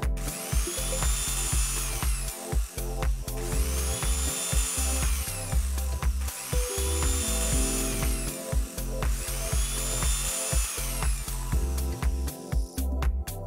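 Electric drill running four times, each run about two seconds long, winding up in pitch, holding and winding down, over background electronic music with a steady beat.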